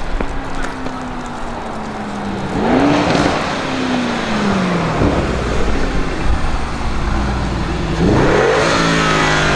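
Tuned Audi RS Q8's twin-turbo V8 revved twice. The pitch falls back between the revs, and the second rev, about eight seconds in, climbs steeply and holds high.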